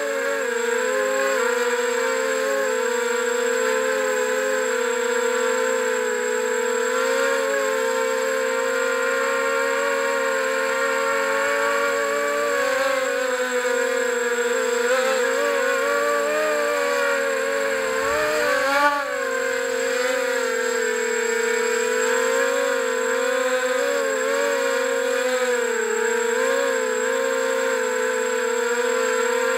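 Small FPV quadcopter's electric motors and propellers whining steadily, heard from its onboard camera, the pitch wavering with the throttle and briefly dipping and jumping about 18 to 19 seconds in.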